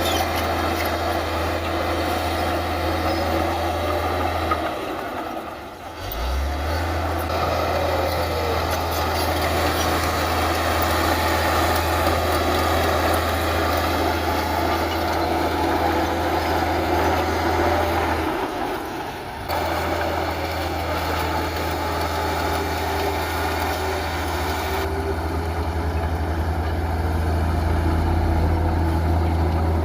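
Heavy diesel earthmoving machinery running steadily, a continuous low engine drone that drops out briefly twice, about five seconds in and again past the middle.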